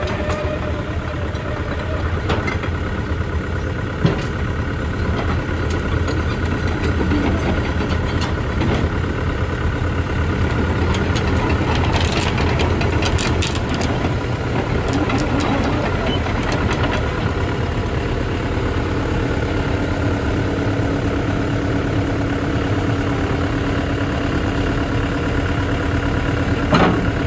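Sany SY75C excavator's diesel engine idling steadily. A few sharp clicks come about halfway through, and a steady higher hum joins in the last third.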